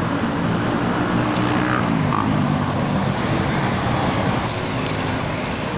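Steady rush of road noise heard from a moving bicycle: wind on the phone microphone mixed with motor traffic passing on the road, with a faint engine hum.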